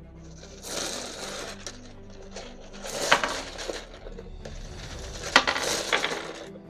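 Loose 9mm cartridges poured into an ammo storage cube: brass clattering and clinking in three pours. A sharp clink stands out about three seconds in, and another after five seconds.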